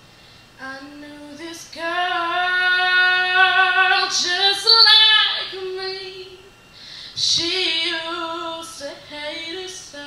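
A young woman singing solo into a microphone without accompaniment: two long phrases of drawn-out held notes, with a short breath pause about two-thirds of the way through.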